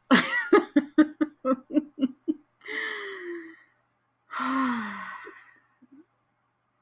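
A woman laughing in quick bursts, about four a second, for a couple of seconds. Then come two long, breathy sighs, each falling in pitch: swooning sighs of delight.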